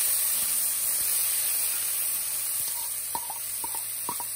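Hot oil with cumin (jeera) seeds sizzling steadily in a pot. A few light clicks come in the last second and a half.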